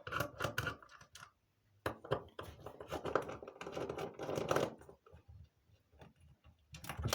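Screwdriver working the case screws of a radio telephone, with irregular clicks and scraping of the tool and the handled housing, and a louder knock near the end.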